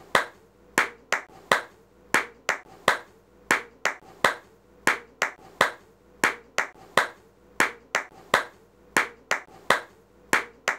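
Hands clapping in a long steady run of sharp claps, about two to three a second, some falling in quick pairs: a simple clap pattern repeated over and over.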